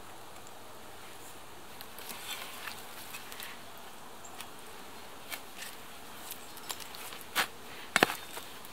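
A spade digging into dry, rooty soil: scattered light scrapes and crunches, then two sharp strikes of the blade near the end, over a steady hiss.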